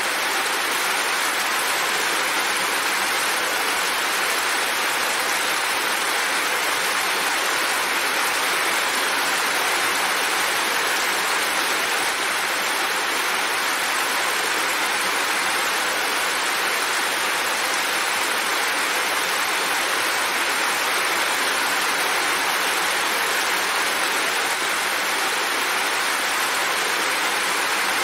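Heavy rain falling steadily, an even wash of sound with no separate drops, gusts or thunder standing out.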